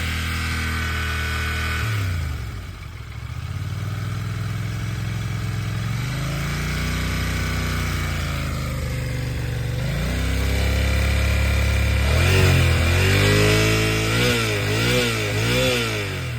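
Yamaha TDM 900 parallel-twin engine idling, then revved: one slow rise and fall about six seconds in, then several quick throttle blips near the end. The owner is asking whether its mechanical noise is normal or could be the cam chain.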